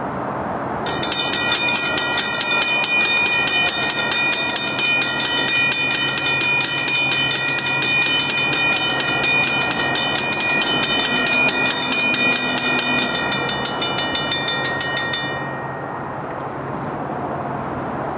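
Railroad grade crossing warning bell ringing rapidly, starting about a second in and cutting off about fifteen seconds in, warning of an approaching train.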